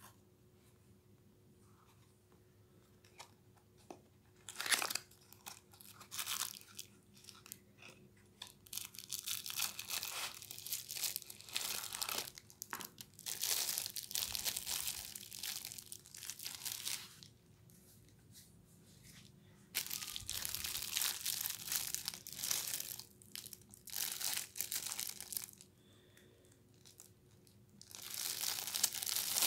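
Clear plastic bag crinkling and rustling in irregular bursts as hands handle and unwrap a small amplifier circuit board. The first few seconds are quiet, and there are short quiet pauses between bursts.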